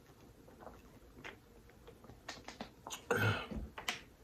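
Close-up mouth sounds of a person chewing creamy pasta: small wet clicks and lip smacks, with a louder mouth noise about three seconds in.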